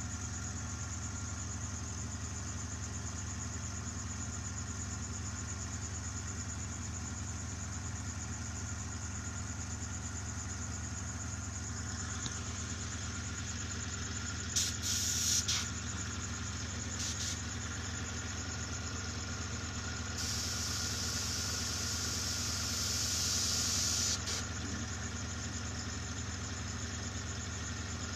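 Airbrush compressor motor running with a steady hum. Over it come three bursts of hissing air from the airbrush: a short one, a brief one, and then a longer one lasting about four seconds.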